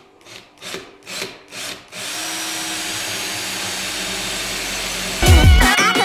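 Power drill drilling spoiler mounting holes in a car's sheet-metal trunk lid: four short trigger bursts, then a steady run. Loud music with a heavy beat comes in about a second before the end.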